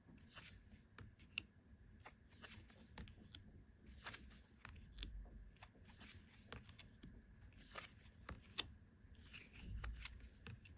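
Faint rustling and soft, irregular ticks of oracle cards being slid one at a time off the top of a hand-held deck.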